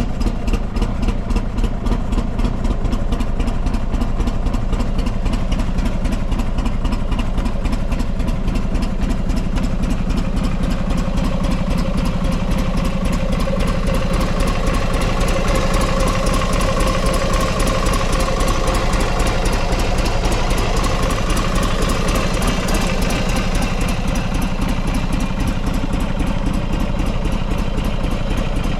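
Buell XB12SCG Lightning's air-cooled 1203 cc V-twin idling steadily, its firing pulses even, with no abnormal noise according to the seller.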